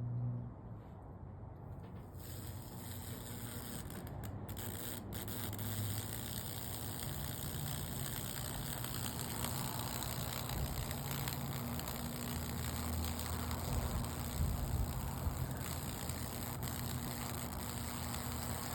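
Microwave-oven transformer humming steadily under load while its high voltage arcs across baking-soda-soaked wood, a crackling, sizzling hiss that sets in about two seconds in and slowly grows louder as the fractal burn spreads.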